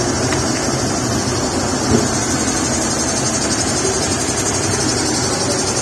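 A vehicle engine idling steadily, with a brief knock about two seconds in.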